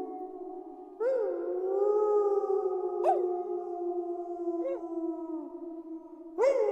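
A pack of wolves howling in chorus, several long howls overlapping at different pitches. New howls break in about a second in, near three seconds, near five seconds and again near the end, each sweeping up sharply, then holding and slowly sinking.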